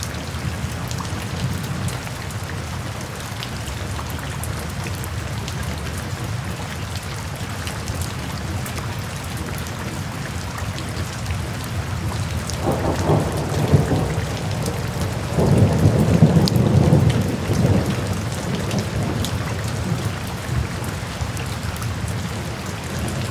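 Steady rain, with two rolls of thunder a little past the middle.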